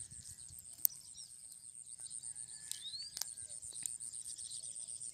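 A steady high-pitched insect drone with a few short bird chirps, and several sharp clicks, the loudest about a second in.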